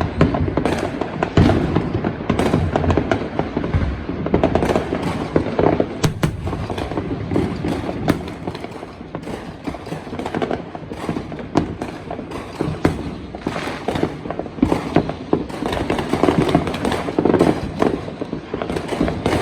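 Fireworks going off without a break: dense crackling with many overlapping bangs and pops.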